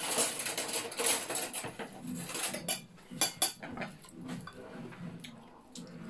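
A metal spoon and fork scraping and clinking against a ceramic plate, dense for the first few seconds, with a few sharper clinks a little after the middle, then softer close-up chewing.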